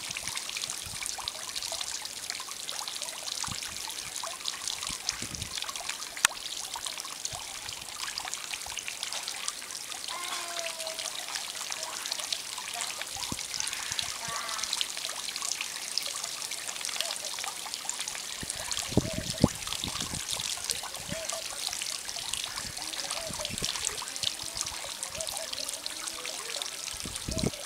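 Wind outdoors: a steady rustling hiss, with a few low gusts buffeting the microphone.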